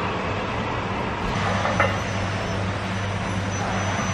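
Steady rushing room noise of a gym with a constant low mechanical hum, and a faint knock about two seconds in.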